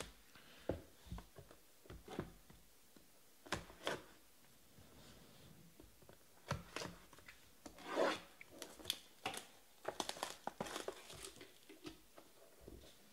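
Plastic shrink-wrap being torn and crinkled off a small trading-card hobby box, with taps and rubbing as the box is handled. The crackling is loudest about eight seconds in and busiest between about ten and eleven and a half seconds in.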